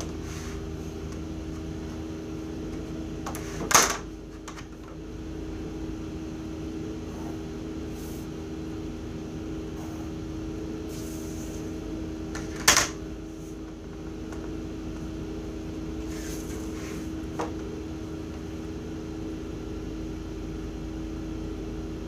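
Steady hum of a wall-mounted window air conditioner running. Two sharp knocks come about four and thirteen seconds in, as rulers and set squares are put down on the drawing table, with a lighter click later.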